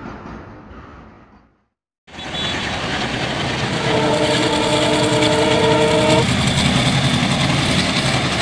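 A freight train's rumble fades out in the first second and a half, then after a brief silence an ALCo WDM3A diesel locomotive passes with its engine chugging heavily under the rolling of the coaches. About four seconds in its horn sounds once, a steady chord for about two seconds.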